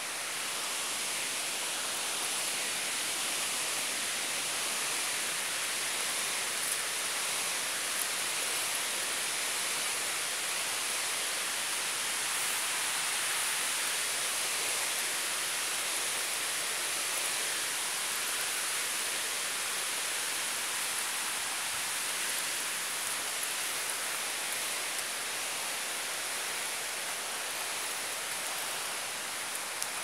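Steady rushing of the Sandanska Bistritsa, a mountain river: an even, unbroken hiss of running water.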